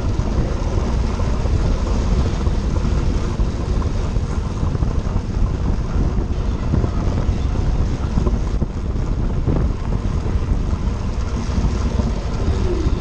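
Steady wind rush on a handlebar-mounted action camera of a track bike riding at race speed in a bunch on a wooden velodrome.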